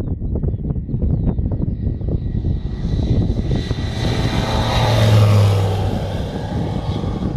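Single-engine propeller light aircraft making a low flyby. Its engine and propeller grow louder, peak about five seconds in, then fade as it passes.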